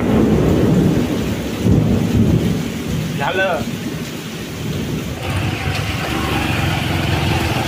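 Thunder rumbling over heavy rain, starting suddenly and swelling again about two seconds in, then settling into a steadier rushing noise.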